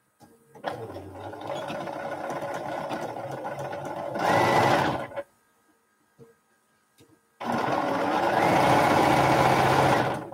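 Bernina sewing machine stitching fabric in two runs: the first lasts about four and a half seconds and gets louder for its last second, then after a two-second pause a second, steady run of about three seconds.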